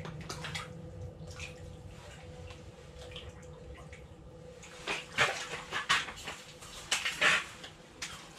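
Hooked smallmouth bass splashing in a hole in the ice as it is landed by hand, with a run of loud splashes in the second half, over a faint steady hum.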